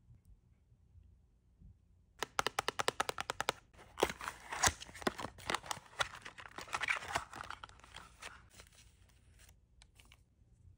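Blemish-strip packaging being handled close to the microphone: about two seconds in, a fast run of clicks, then several seconds of crinkling and rustling of the card and plastic strip sheet.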